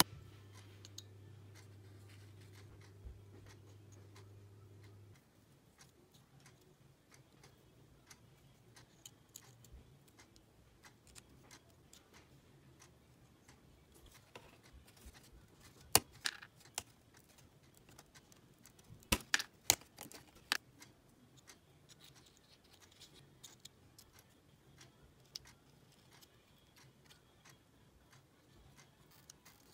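Thin laser-cut plywood puzzle pieces clicking and tapping as they are handled and pressed together into the basket. The clicks are small and scattered, with a sharp one about halfway through and a quick run of sharper clicks a few seconds later.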